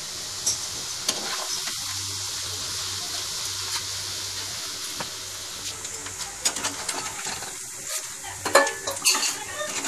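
Hot oil sizzling steadily as potato-and-gram-flour bhujiya strands deep-fry, with a spatula stirring and scraping in the granite-coated pan. The scrapes and knocks get busier and louder from about six seconds in.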